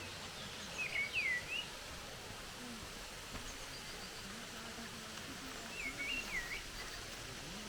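A bird calls twice, each time a short phrase of quick swooping whistled notes, about a second in and again about six seconds in, over steady outdoor background noise.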